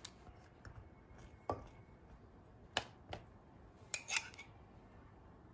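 Faint clinks and taps of a metal spoon against a cup and a steel cake ring as milk is spooned over a cake layer: about five light clicks spread out, with two in quick succession about four seconds in.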